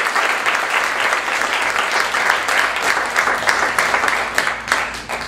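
Audience applauding, thinning to a few scattered claps near the end and dying away.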